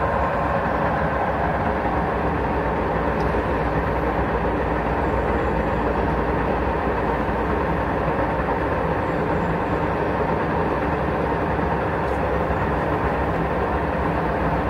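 TOS SUS 63 heavy centre lathe running under power, giving a steady, even mechanical whirr from its drive and gearing.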